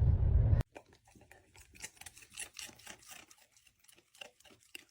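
A loud low rumbling noise cuts off abruptly about half a second in. Then comes quiet, irregular crunching and clicking, like a dog chewing food.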